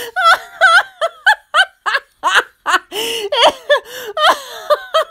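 A woman laughing aloud in quick, high-pitched 'ha!' and 'hee!' bursts, about three a second: acted laughter voicing two laughing cartoon characters as a picture book is read aloud.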